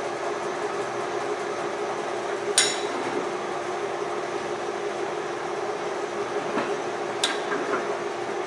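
LeBlond 13" x 32" engine and turret lathe running steadily with a hum, and two sharp metallic clinks, one a few seconds in and one near the end.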